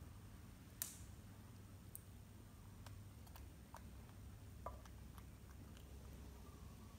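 Faint clicks and small chewing sounds of a baby macaque eating rice from a plate with its hands and mouth, with one sharper click about a second in.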